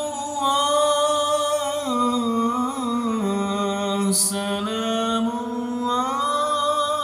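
One voice singing an Islamic sholawat in long, drawn-out ornamented notes whose pitch steps downward. There is a quick breath about four seconds in.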